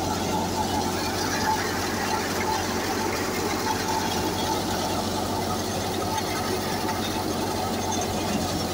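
Tractor-powered wheat thresher running steadily while sheaves are fed in: a constant mechanical drone of the belt-driven drum and blower over the low hum of the Massey Ferguson 375 tractor's diesel engine under load.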